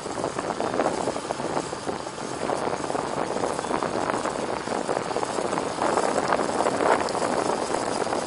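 Rushing wind and road noise from a vehicle on the move, a steady noisy hiss with no clear engine note.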